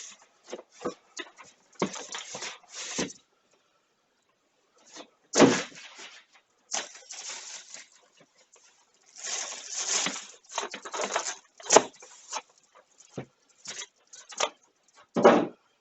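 A PC case's cardboard box and packing being handled: bursts of rustling and scraping with several sharp knocks, and a short quiet gap about three seconds in.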